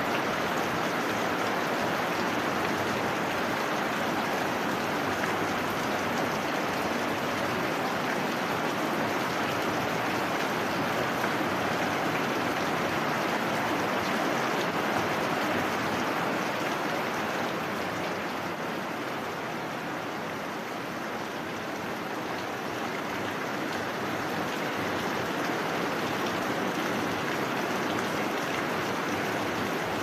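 Heavy rain falling steadily, a dense even hiss with no thunder, easing a little in level for a few seconds about two-thirds of the way through.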